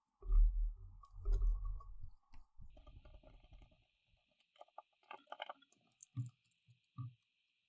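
Handling noise and small clicks while screws are driven back into a folding pocket knife with a T6 Torx driver. It opens with a heavy low rumble of handling, then a run of light clicks and taps, with a few dull knocks near the end.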